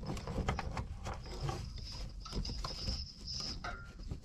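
Hand handling noise against a car's fuel tank plumbing: a gloved hand rubbing and knocking on the rubber filler hose and lines, with scattered small clicks and knocks and a thin high rubbing sound through the middle.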